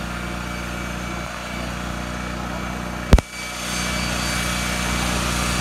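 Thunder Tiger CX180 coaxial unmanned helicopter hovering, running with a steady mechanical hum. A single sharp click comes about three seconds in, after which the hum is a little louder.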